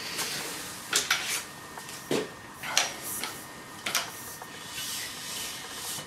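Metal tripod base of a bike repair stand being picked up and its legs swung open: a handful of sharp knocks and clicks from the tubes and leg joints over a rubbing, sliding sound.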